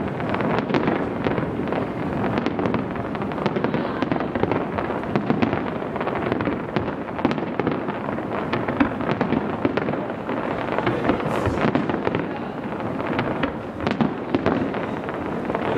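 Fireworks display going off continuously: a dense, rapid run of crackling pops and bangs with no pause.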